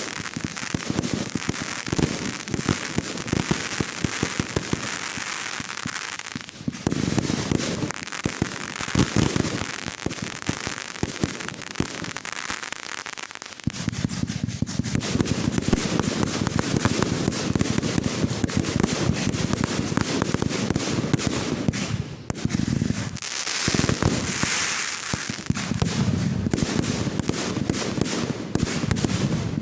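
Fireworks going off in a continuous barrage, a dense rapid crackling and popping of many small reports, with deeper booms mixed in from about halfway through and a couple of brief lulls.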